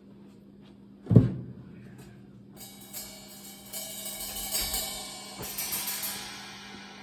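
Drum kit being sound-checked: one low drum hit about a second in, then cymbals struck several times and left ringing, fading near the end.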